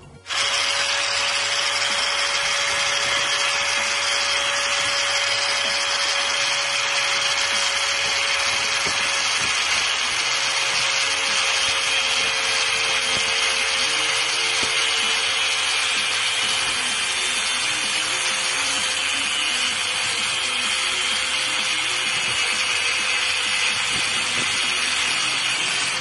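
Angle grinder with a thin cutting disc cutting through the cast metal frame of a refrigerator compressor: a loud, steady high grinding hiss over the motor's whine, which sinks slightly in pitch as the disc bears into the metal. It starts abruptly just after the start.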